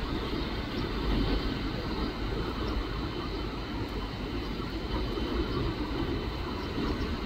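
Distant jet engines of an Airbus A319 running steadily as it lines up at the far end of the runway: a low, uneven rumble with a faint steady high whine above it.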